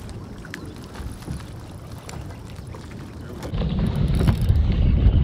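Wind and lapping water around a small boat on open water, with a few faint ticks. About three and a half seconds in it jumps louder, with ragged low rumbling wind noise on the microphone.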